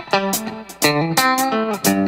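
Background music: rhythmic plucked electric guitar chords with bass.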